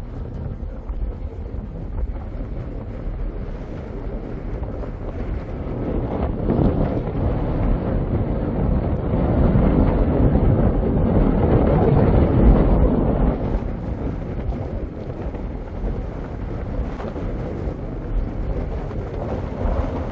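Wind noise on the microphone on the open deck of a ferry underway, over the low, steady noise of the moving boat. It grows louder for several seconds in the middle, then settles back.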